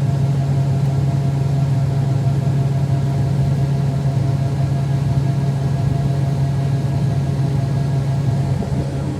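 Combine harvester running steadily: a constant low hum over dense machinery noise, easing slightly near the end.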